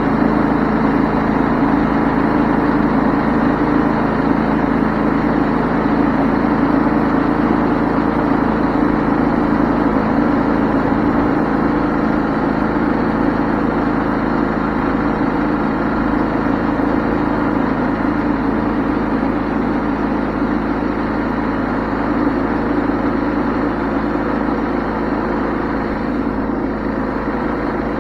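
Wood-Mizer LT20 band sawmill running steadily at working speed, its engine and band blade giving a constant drone that eases slightly toward the end.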